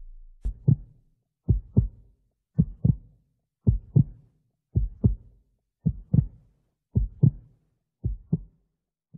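Slow heartbeat: eight paired lub-dub thumps, about one beat a second, the last one a little quieter.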